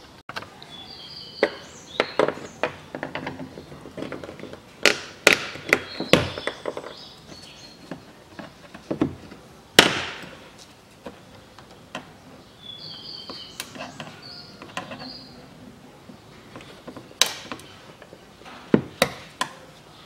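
Sharp plastic clicks and snaps as wiring connectors and clips are unplugged and pried loose from a Range Rover Evoque's front door frame, with one loud snap about ten seconds in.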